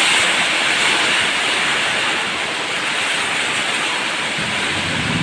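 Rain pouring down steadily: a dense, even hiss.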